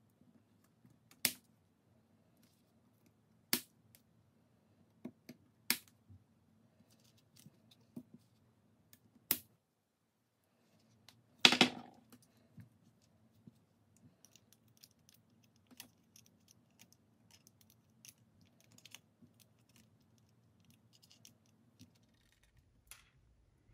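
Sharp clicks and light taps of small hard parts being handled at a repair bench: a few separate clicks a couple of seconds apart, a louder clatter about halfway through, then many faint ticks. A low steady hum runs underneath and drops out for about a second just before the clatter.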